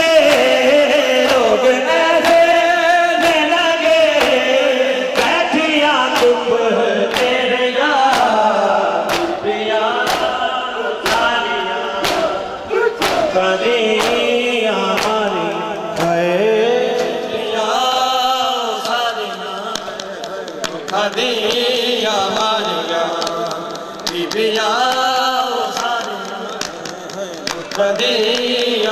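Men's voices chanting a noha, a mourning lament, in chorus. About five seconds in, hands begin slapping bare chests in matam, about two sharp slaps a second, and this thins out past the middle.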